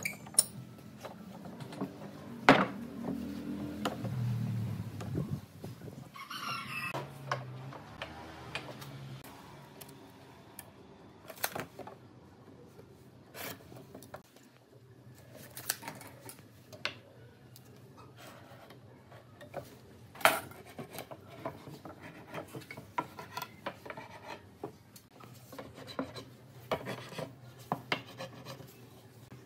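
Hand work on a workbench: pine boards and steel pipe clamps being handled, giving scattered sharp knocks and clicks with rubbing and scraping in between. The loudest knocks come about two and a half seconds in and about twenty seconds in.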